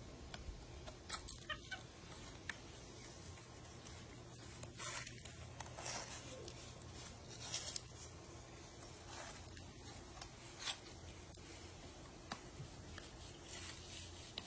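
Quiet, scattered scrapes and rustles of gloved hands smoothing patching compound onto a goose statue over newspaper.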